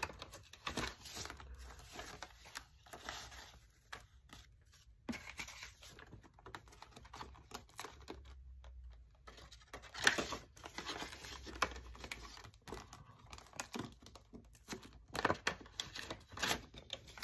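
Paper banknotes and the clear plastic pockets of a ring-binder cash envelope rustling and crinkling as bills are pulled out and leafed through by hand. The rustling comes in short, irregular spells and is loudest about ten seconds in and again near the end.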